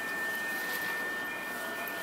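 Inside a JR East E233-series electric commuter train standing still: a steady high-pitched whine over a faint, even hiss, with no rumble from wheels on rail.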